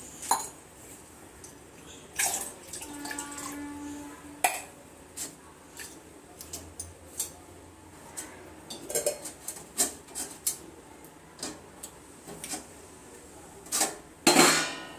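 Kitchen pots and utensils clinking and knocking in scattered short taps, with a short steady tone about three seconds in and a louder clatter near the end.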